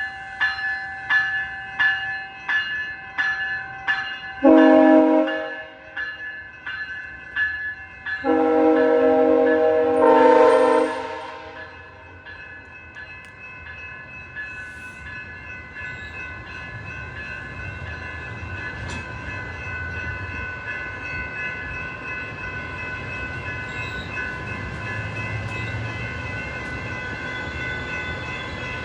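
A bell rings about twice a second. A train horn then sounds a short blast, and a few seconds later a long blast of about three seconds. After that the train rolls past with a low rumble that slowly builds, under a steady high ringing tone.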